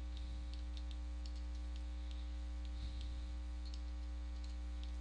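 Computer mouse and keyboard in use: scattered small clicks from mouse buttons, scroll-wheel notches and key presses, over a steady electrical hum.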